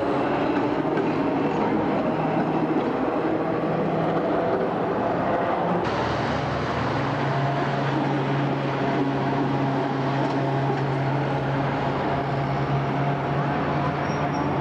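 Hong Kong double-deck electric trams running past with a steady hum. The sound changes abruptly about six seconds in, when a second tram comes by.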